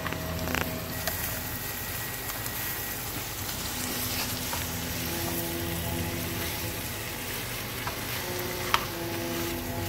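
Diced raw pork sizzling and frying in a nonstick pan of onions, stirred with a plastic spatula. A sharp tap near the end.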